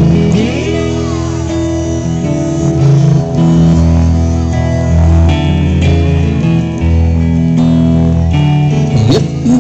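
Live band playing an instrumental passage, with no singing: electric guitar and harmonica over a steady bass line.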